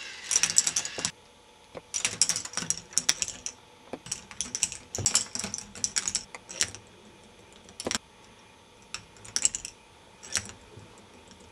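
K'nex ball machine running: balls clattering through its plastic tracks and elements in irregular bursts of rapid clicks, a second or more apart, over a faint steady hum.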